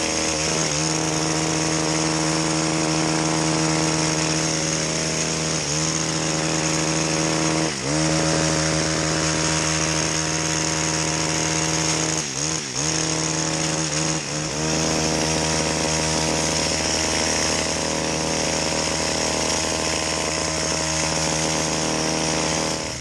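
Two-stroke chainsaw running steadily at high revs, its pitch dipping briefly several times.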